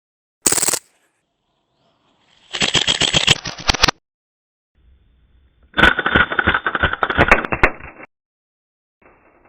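Umarex Beretta M9A3 CO2 BB pistol firing on full auto with its blowback slide cycling: a very short burst near the start, then two longer rapid-fire bursts of about one and a half and two seconds, each stopping abruptly.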